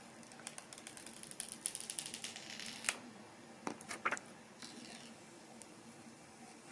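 Clear plastic protective wrap being peeled off a new phone and crinkled in the fingers: faint, quick crackles and ticks, thickest in the first three seconds, then a few separate clicks around four seconds in.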